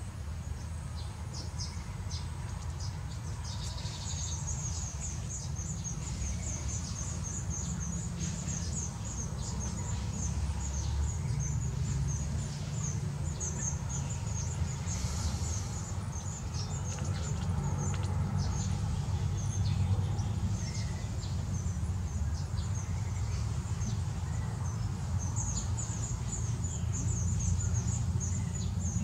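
Baya weavers chattering at their hanging nests: a fast run of short, high chirps, several a second, that thins out for a few seconds and picks up again near the end, over a steady low rumble.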